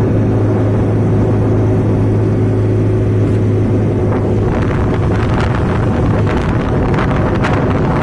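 A vehicle engine runs steadily with a constant low hum while on the move. Wind buffeting on the microphone picks up about halfway through.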